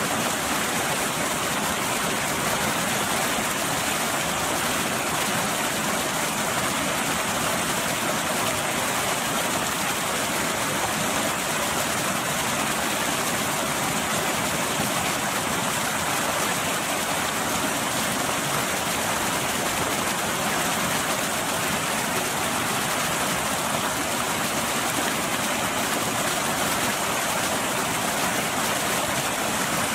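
Water pouring over a small waterfall into a churning pool: a steady, unbroken rush of white water.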